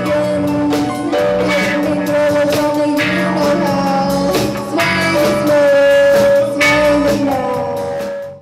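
Live band playing a dance number: electric guitar, keyboard and drum kit with singing. The music cuts off suddenly at the very end.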